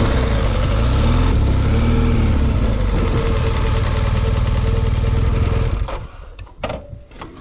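BMW R 1200 GS boxer-twin motorcycle engine running steadily at low revs, then dropping away abruptly about six seconds in, leaving a few sharp clicks and knocks.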